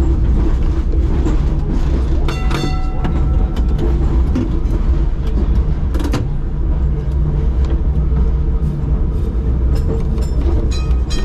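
SW6-class tram running slowly along the track, heard from its driving cab: a steady low rumble with scattered clicks and knocks from the wheels on the rails. A short ringing tone sounds about two seconds in, and another just at the end.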